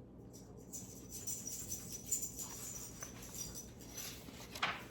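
Turning a page of a picture book: paper rustling for a few seconds, ending in a short sharp flap of the page about four and a half seconds in.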